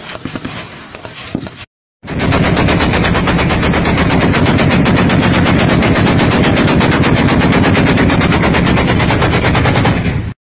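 Fainter shots for the first second or so, then, after a brief gap, a truck-mounted heavy machine gun fires one long unbroken burst: a fast, even stream of very loud shots lasting about eight seconds that cuts off abruptly near the end.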